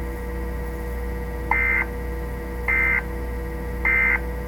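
Three short bursts of Emergency Alert System digital data tones, the SAME end-of-message code, each about a third of a second long and just over a second apart, over a steady low hum. They signal the end of the alert message.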